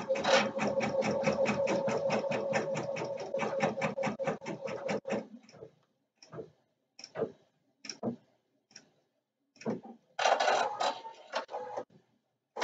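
Husqvarna Viking Designer Topaz 50 embroidery machine running a tack-down stitch, a fast, even rattle of needle strokes. It stops about five seconds in, followed by a few short, separate sounds.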